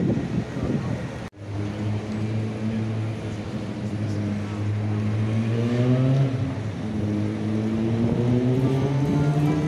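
A motor vehicle engine accelerating: its pitch climbs, drops sharply once about six seconds in, then climbs again. Before it, a little over a second in, mixed street noise cuts out suddenly for a moment.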